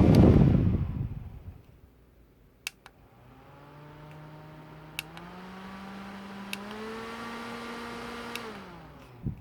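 Onan Korea N9-FAN electric fan: a loud rush of air fades away as it slows. Then a faint motor whine steps up in pitch with each short control click as the speed is raised. After a final click near the end the whine glides down as the fan switches off.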